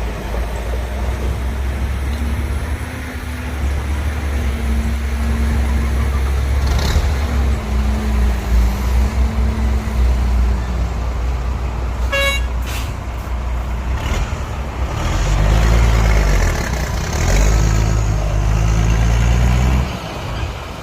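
Heavy diesel engines of earthmoving machinery running with a deep low rumble, the engine note rising and falling as they work. There is a brief high-pitched sound about twelve seconds in.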